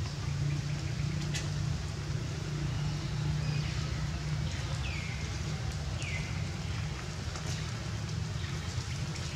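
Outdoor background: a steady low rumble, with two short falling chirps about halfway through and a couple of faint ticks.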